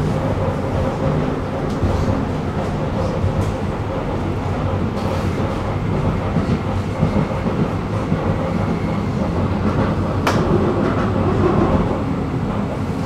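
Prague tram running along its line: a steady rumble of wheels on rails. A faint high whine comes in around the middle, and a single sharp click sounds about ten seconds in.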